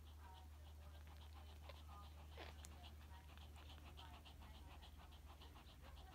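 Faint sounds of Shih Tzu puppies nursing at their mother: small squeaks in the first couple of seconds, then a quick rhythmic sound about four times a second, over a low steady hum.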